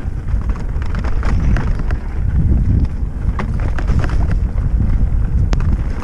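Wind buffeting the microphone over the rolling of mountain bike tyres on a dirt singletrack, with the bike rattling and clicking over small bumps. One sharp click near the end.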